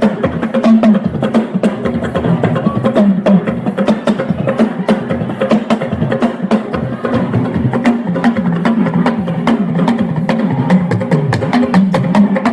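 Live church music with fast percussion: rapid, even clicking strokes over a low melodic line that moves up and down.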